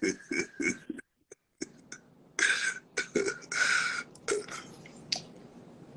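A person's voice: a few brief indistinct syllables, then two rough, noisy throat sounds about a second apart, like coughing.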